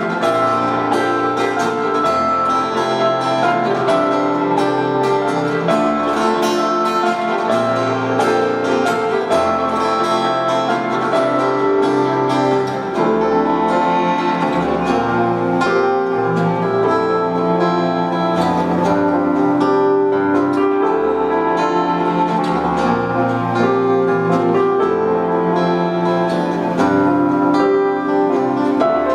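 Instrumental ensemble music with picked acoustic guitar, piano and bowed strings over a moving bass line.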